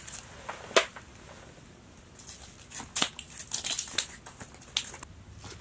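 Scattered sharp slaps and clicks with rustling: a freshly caught yellow perch flopping on the ice and fishing rods and reels being handled.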